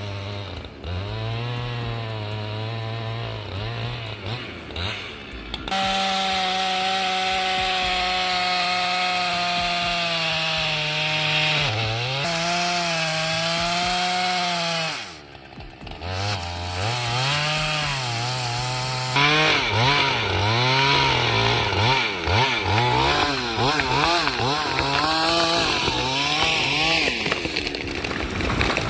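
Two-stroke chainsaw cutting into a large tree trunk. It runs at lower revs at first, then is held at high revs for about ten seconds. After a brief break it revs up and down repeatedly near the end.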